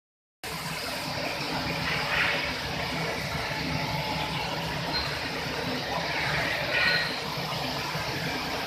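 Steady running noise of an Okuma machine tool and its drive cabinet: a low hum under a hiss, with two brief louder swells, one about two seconds in and one near seven seconds.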